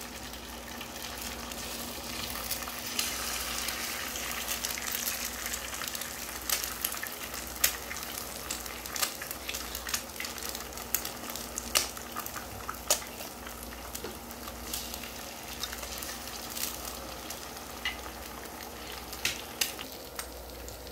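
Eggs frying in hot oil on a dosa tawa: a steady sizzle with frequent sharp crackling pops.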